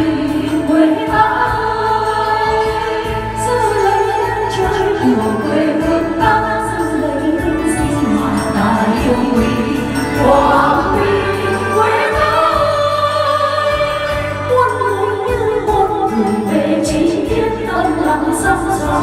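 Karaoke: a woman singing a Vietnamese song into a microphone over a music backing track.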